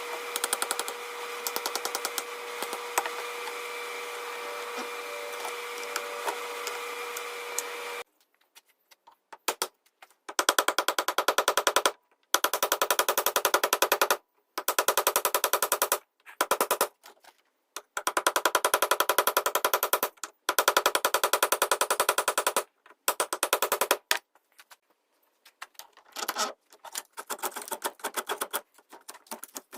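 A power tool runs steadily with a whine for about eight seconds, then stops abruptly. After that come bursts of very rapid clicking, each a second or two long, with silences between them.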